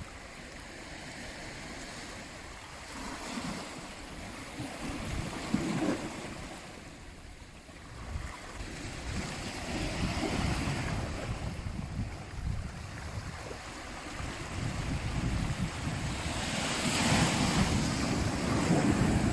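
Sea waves washing onto a shore, swelling and fading in slow surges about every six or seven seconds, three in all, with the loudest near the end.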